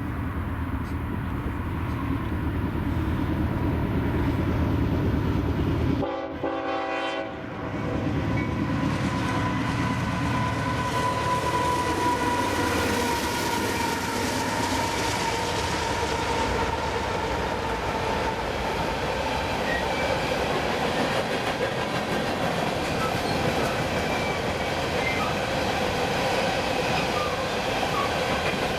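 Freight train passing close by: a low locomotive rumble, then rail cars rolling along the track with steady ringing tones over the wheel noise. The sound breaks off briefly about six seconds in.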